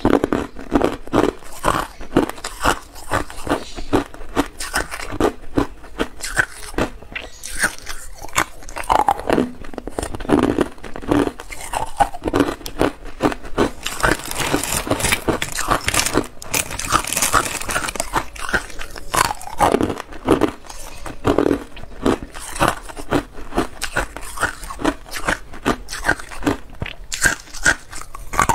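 Clear ice cubes being bitten and chewed, a fast, continuous run of sharp cracks and crunches. About halfway through, a plastic bag rustles as a hand reaches into it for more ice.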